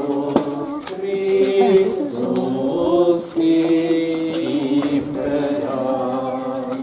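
Voices singing a slow processional hymn in long, held notes that step from pitch to pitch, in the manner of church chant.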